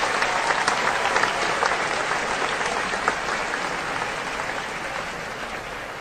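A crowd applauding: many hands clapping at once, loudest in the first couple of seconds and then slowly fading out.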